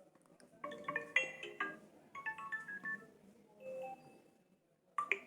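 Vivo phone notification tones previewed one after another through the phone's speaker: several short tones in turn, each a quick run of a few pitched chiming notes, with a brief sharp sound near the end.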